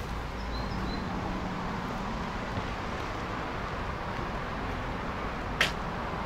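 Steady outdoor background noise with a few faint high chirps about half a second in and a single sharp click near the end.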